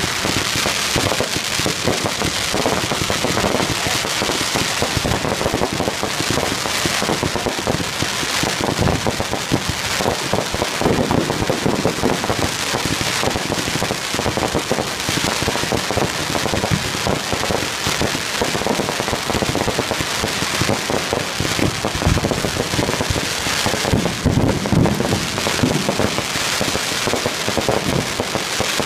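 Fireworks display: aerial shells bursting in a dense, continuous barrage of rapid bangs and crackling pops with no let-up.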